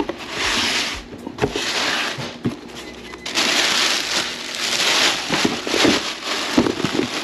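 Packaging being handled and unwrapped: bursts of crinkling and rustling, each a second or two long, broken by small sharp crackles.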